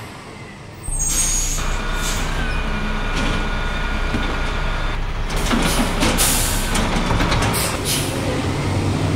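Garbage truck sound effects: a low engine running, with a hiss of air brakes about a second in, then a steady whine while the side arm lifts the bin. A burst of clattering follows midway as the bin is emptied.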